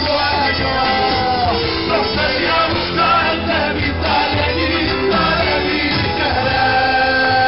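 Live Argentine folk band playing, with a male lead singer singing long held notes over guitars and violin.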